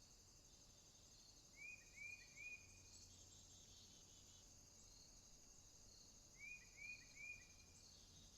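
Faint outdoor afternoon ambience: a steady high-pitched insect chorus of crickets trills throughout. A bird calls three quick short notes about one and a half seconds in, and the same three-note phrase again about six and a half seconds in.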